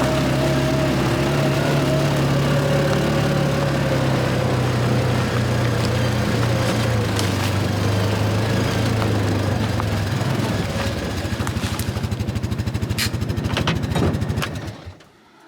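Side-by-side utility vehicle's engine running, with knocks and rattles from the vehicle. Near the end the engine drops to a slow, pulsing idle and then shuts off.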